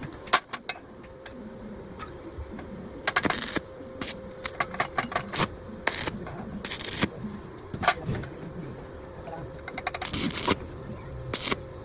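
Irregular metallic clinks and clatters of metal being handled and struck, with a few short, harsh noisy bursts about three, seven and ten seconds in.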